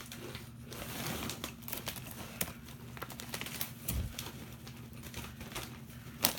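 Crisp, irregular crackling crunches of pita chips being chewed, with a low thump about four seconds in.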